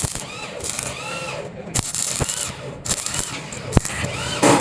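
Repeated scraping strokes of metal on metal, about one a second, each with a short squeal that rises and falls in pitch, and a few sharp clicks between them.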